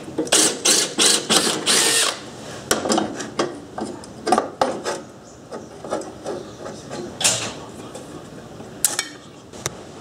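Cordless drill run in short bursts, its bit drilling through the mower's steel bracket, a quick series of drill pulses in the first two seconds. Then scattered metallic clicks and knocks from tools on the bracket, with a short burst about seven seconds in and a sharp click near the end.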